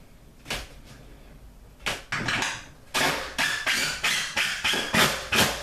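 A few single knocks, then a screw being driven through the wall cabinet into the wall with a power driver. From about halfway through it goes as a run of sharp, repeated impacts, about four a second.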